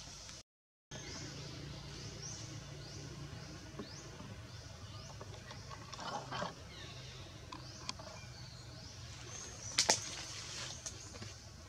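Outdoor ambience with a run of short, high, rising chirps repeating about twice a second, likely a bird or insect, over a low steady hum. A few sharp clicks stand out, the loudest near the end, and the sound drops out briefly about half a second in.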